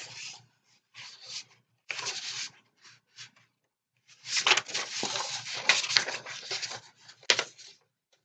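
Paper and book handling: a card and the book's pages and cover rustling and rubbing in irregular bursts, with a few sharper crinkles in the second half.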